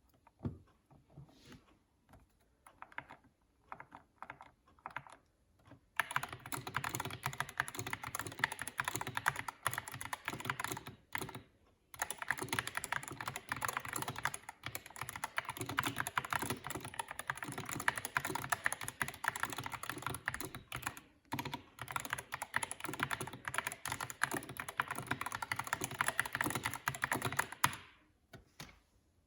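Typing on a Dierya DK61 Pro 60% mechanical keyboard with Gateron optical switches. A few scattered keystrokes give way to fast, continuous typing, which breaks off briefly once and stops near the end.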